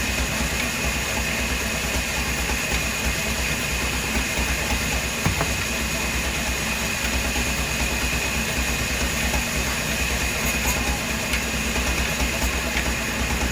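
Machinery running steadily, a constant low rumble under hiss with a few steady high tones.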